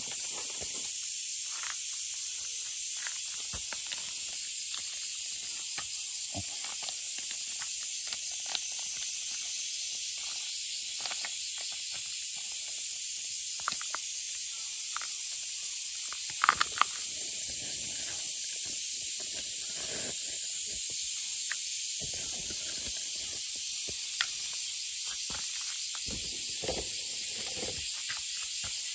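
Steady, high-pitched shrill of a summer cicada chorus, unbroken throughout. A few soft clicks and rustles are heard, with a brief cluster of sharper clicks about sixteen seconds in.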